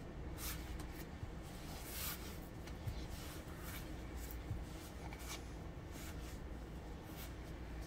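Hands kneading floured bread dough on a pastry board: soft, scratchy brushing and pressing strokes every second or so, over a low steady hum.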